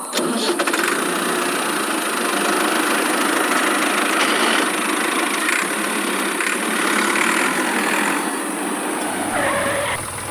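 An engine running steadily, a dense mechanical noise with no clear rhythm.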